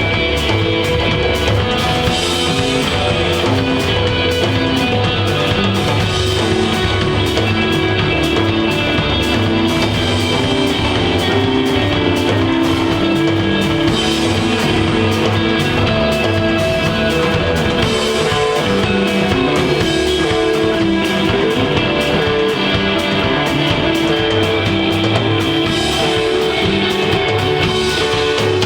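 Instrumental desert rock played live by a band: electric guitar, bass and drum kit, loud and steady throughout, with no singing.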